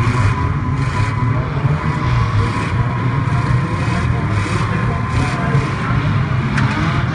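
Engines of several banger-racing cars running and revving together in a pile-up: a dense, steady engine noise with no break.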